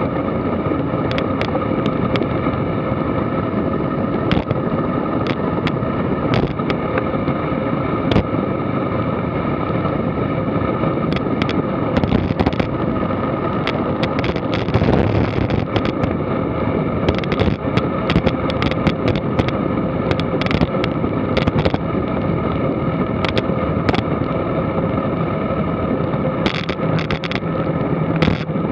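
Wind rushing over a bike-mounted action camera and tyre noise on the asphalt during a fast road-bike descent, broken by frequent sharp clicks and knocks as the bike runs over cracked, uneven pavement.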